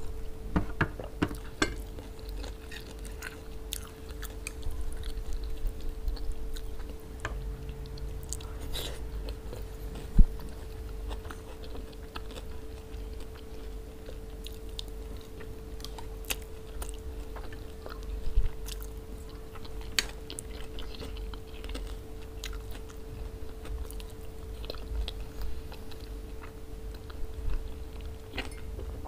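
Close-miked chewing and mouth sounds of a person eating white rice with okra and lamb stew, broken by scattered sharp clicks, one much louder about ten seconds in. A faint steady hum sits underneath.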